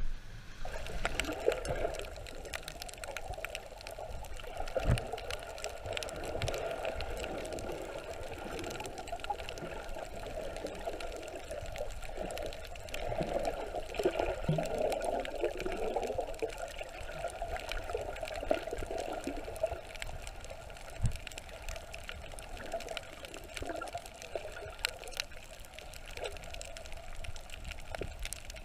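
Water heard underwater: a steady muffled sloshing and gurgling, with many scattered sharp clicks.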